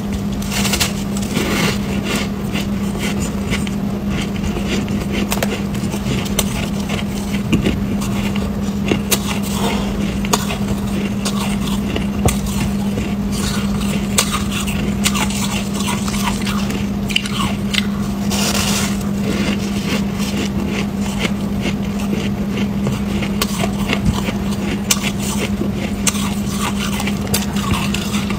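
Chunks of freezer frost and shaved ice being bitten and chewed: many small crunches and crackles, over a steady low hum.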